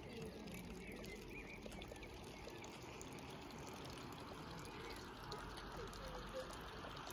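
Faint steady trickle of running water, with a few faint short chirps over it.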